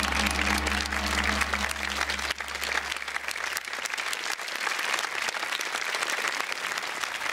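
Studio audience applauding as time is called at the end of the cooking round. A low held note from the music before it dies away over the first few seconds.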